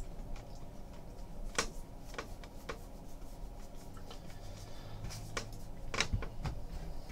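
Baseball trading cards being flipped through by hand: a handful of soft, scattered clicks and light rubbing of card against card.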